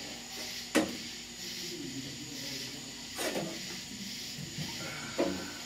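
Three separate knocks from work on the truck's sheet-metal roof panel, a sharp one about a second in and duller ones past three and past five seconds, over a steady hiss.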